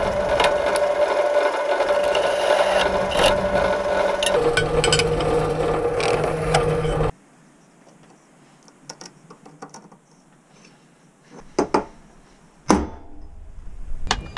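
Benchtop drill press running, its countersink bit cutting into a steel flat bar; the motor's pitch drops slightly about four seconds in. The drilling cuts off suddenly about seven seconds in, giving way to a few light clicks and knocks of steel bars and tools handled on a workbench.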